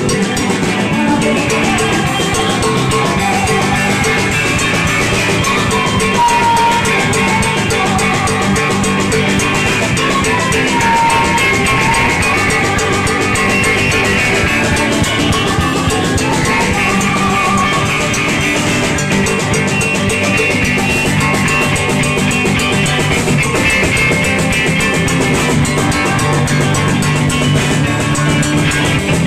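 Live rock band playing: electric guitars over a drum kit, loud and without a break.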